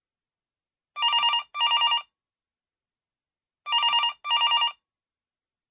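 Telephone ringing with an electronic warbling double ring, heard twice: two short rings close together, then after a pause another pair.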